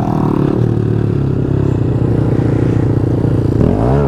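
Honda Grom 125 cc single-cylinder motorcycle engine running steadily while riding along the road.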